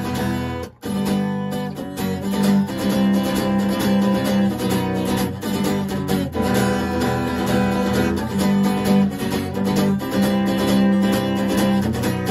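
Acoustic guitar strumming chords steadily in an instrumental break between sung verses, with a brief gap just under a second in.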